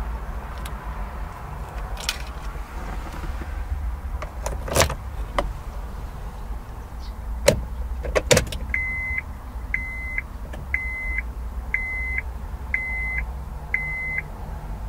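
2004 Honda Civic's 1.6-litre engine idling with a steady low rumble. A few sharp clicks and knocks are the loudest sounds, and about nine seconds in the car's warning chime beeps six times, about once a second.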